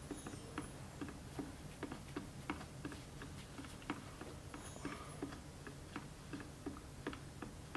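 Faint, even ticking, about two to three ticks a second, over a low steady hum.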